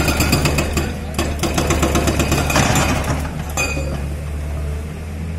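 Tata Hitachi EX200 excavator's hydraulic breaker hammering in rapid, metallic blows for about three and a half seconds, then stopping with a last clang, over the steady hum of the excavator's diesel engine.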